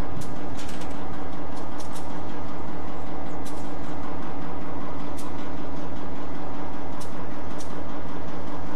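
Diesel-electric locomotive engine idling steadily close by, a low, even pulsing with a hum over it. A few sharp clicks are scattered through it.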